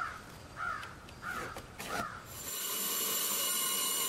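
A crow caws about four times. About halfway through, a small bandsaw starts up with a steady whine as it cuts the angled end of a cedar 2x6 leg.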